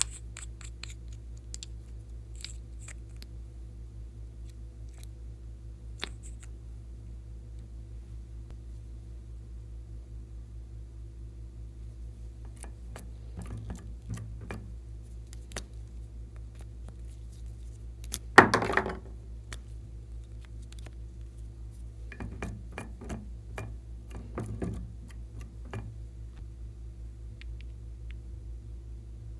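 Light scattered clicks and taps of small plastic cosmetic bottles and their caps being handled, over a steady low electrical hum. One louder, brief clatter comes about two-thirds of the way in.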